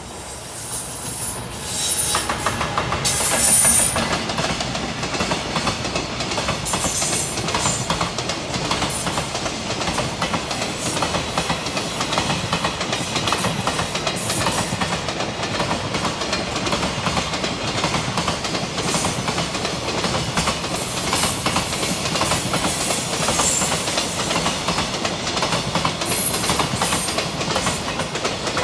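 Freight train hauled by a JR Freight EF210 'Momotaro' electric locomotive passing close by. The locomotive comes up loud about two seconds in, then a long steady run of wagons clatters over the rail joints.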